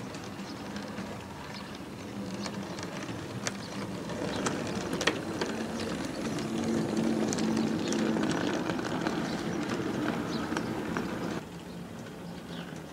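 OO gauge model goods train running on the track: a steady electric motor hum with sharp clicks of wheels over the rail joints, growing louder as the train passes close by, then dropping suddenly near the end.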